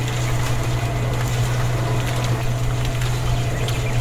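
Small electric motor running with a steady low hum, with faint scattered ticks.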